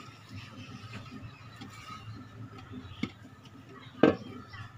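Handling of a terracotta flower pot being coated with wet red clay: faint light taps, then a knock about three seconds in and a louder clunk just after four seconds as the clay pot is turned on the cement floor.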